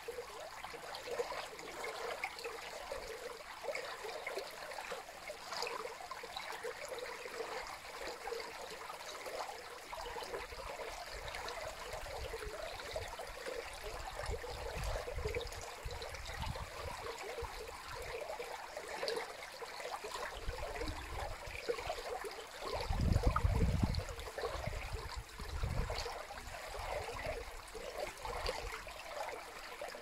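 Water pouring over a low concrete weir into a channel, a steady rushing splash. A few low rumbles come and go in the second half, the loudest about two-thirds of the way through.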